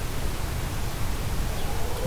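Steady outdoor hiss with a fluctuating low rumble; near the end a distant outdoor tornado warning siren faintly starts up, its tone rising.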